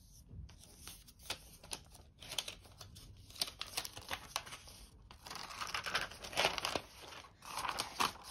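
Thin protective wrap on a new iPad Air being peeled off and handled: crinkling and crackling, with many small clicks, growing into louder, denser rustling about five seconds in.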